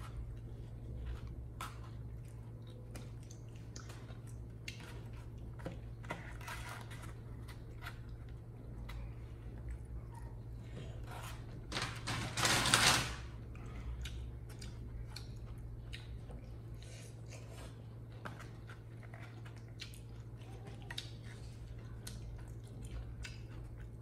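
Eating noodles at close range: chewing and many small clicks of chopsticks and mouths over a steady low hum. Just past halfway comes a loud noisy rush about a second long, a slurp as noodles are eaten from the bowl.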